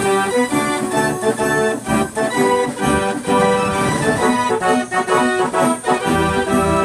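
Wurlitzer Style 165 band organ playing a tune from a perforated paper roll: sustained organ pipes carrying the melody and chords, punctuated by regular drum strokes.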